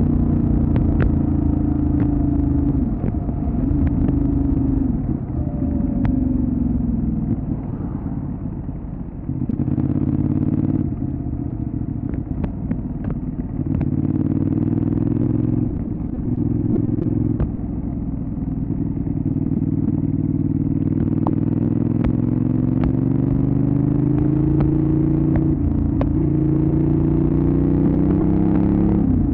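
Benelli Leoncino 800 Trail's parallel-twin engine under way, its revs climbing and dropping through gear changes. It eases off for a few seconds about a third of the way in, then pulls through a long steady climb in revs in the second half.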